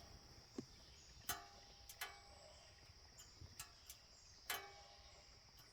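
Faint sharp ticks at an uneven pace, roughly one a second, over a steady faint high-pitched whine.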